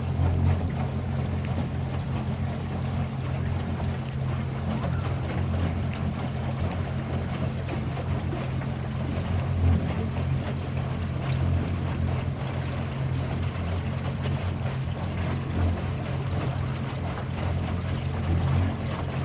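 Small electric boat under way, heard from on board: a steady low rumble with a flickering wash of water noise.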